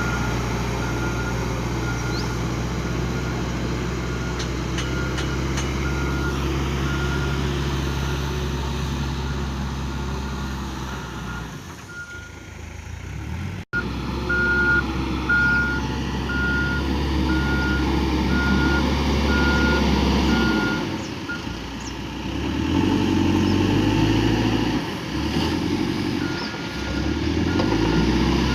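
Cat 428 backhoe loader's diesel engine running under working load, its reversing alarm beeping in a steady pulse. The alarm stops for a few seconds twice and returns, and the engine note dips and rises several times in the second half as the machine works.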